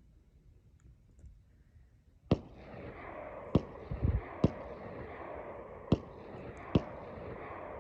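Pistol fired at an AR500 steel target plate: five shots at an uneven pace, starting about two seconds in, each hit ringing off the steel with a lingering wash of ringing and echo between shots.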